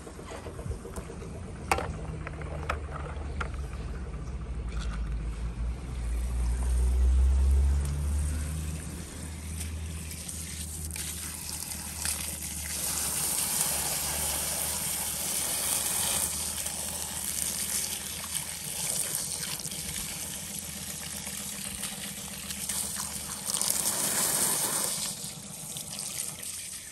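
Water pouring and splashing out of a clear plastic container onto grass, with the splashing swelling and easing off in stretches. A low rumble is the loudest part about a quarter of the way through, and a few sharp handling clicks come near the start.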